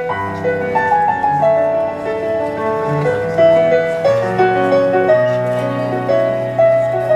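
Electronic keyboard played on a piano sound: a flowing melody of sustained notes over held bass notes.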